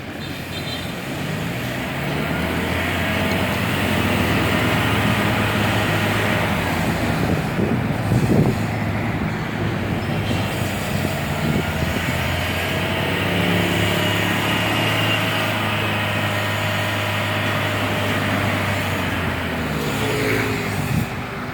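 Ford Ranger's diesel engine being revved in a black-smoke test after a Tribooster is fitted. It climbs over the first couple of seconds, is held at high revs, and falls back near the end.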